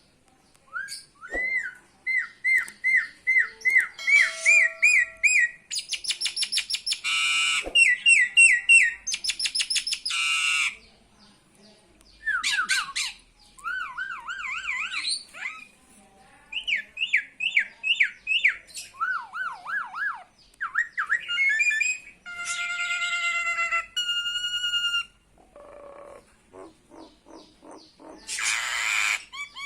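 Nias hill myna calling: a varied run of whistles, quick series of repeated chirps at a few notes a second, and harsh rasping squawks.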